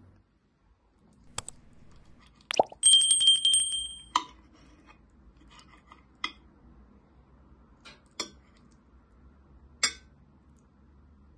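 Cutlery clinking on a ceramic plate while cutting stuffed eggplant: a handful of sharp clinks of fork and knife against the plate. About two and a half seconds in, the knife scrapes across the plate for just over a second, setting it ringing with a loud, high screech, the loudest sound here.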